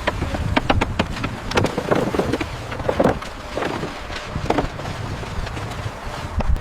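Construction-site work noise: irregular knocks and clanks of tools and steel over a steady low machine rumble.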